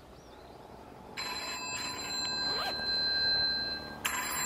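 Mobile phone ringing with an electronic ringtone: a steady ring starts about a second in, stops briefly near the end and starts again.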